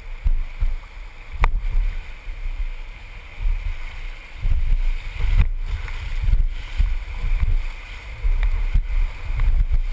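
Rushing river water heard from a raft, with uneven gusts of low rumble from wind on the microphone.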